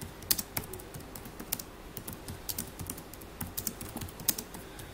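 Typing on a computer keyboard: a run of quick, uneven key clicks as a sentence is typed out.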